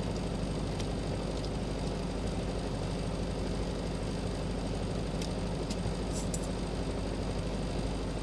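Welding arc on a stainless-steel flange: a steady electrical buzz without a break, with a few faint ticks.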